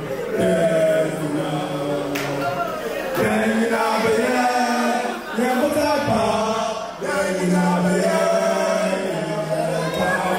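A group of men singing a chant-like song together.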